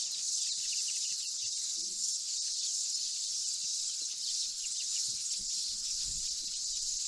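Steady, high-pitched drone of insects, unbroken through the whole stretch.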